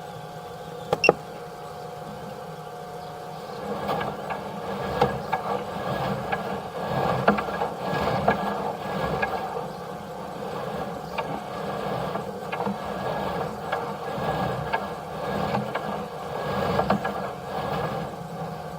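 Steady machine hum of several fixed tones, with irregular scrapes and knocks from a sewer inspection camera being pushed along a kitchen drain line. There are two sharp clicks about a second in.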